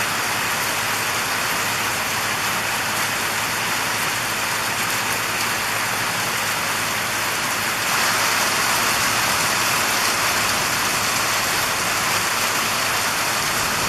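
Steady heavy rain pouring down in a thunderstorm, growing a little louder about eight seconds in.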